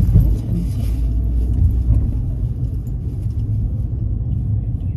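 Steady low engine and road rumble of a car heard from inside the cabin while it is being driven.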